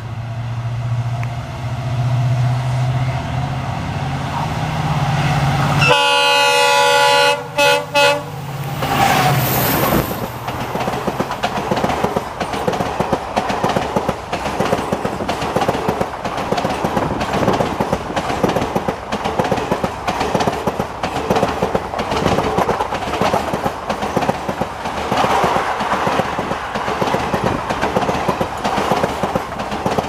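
EMD WDP4D diesel locomotive humming as it approaches, then sounding its multi-tone horn for about three seconds about six seconds in, breaking off twice near the end of the blast. The passenger coaches then pass close by with a rapid clickety-clack of wheels over rail joints and a steady rushing noise.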